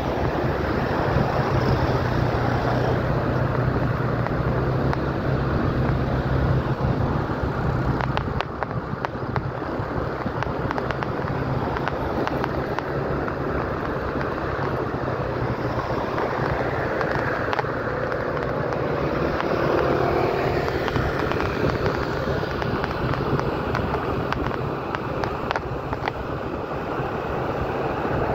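Wind rushing over the microphone with the running noise of a moving vehicle on the road, a low hum under it for the first several seconds.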